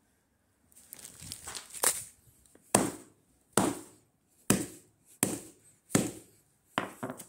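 Sledgehammer repeatedly striking a Samsung Admire smartphone in a plastic bag on a concrete floor, smashing it: about seven hard blows, a little under one a second, starting about two seconds in.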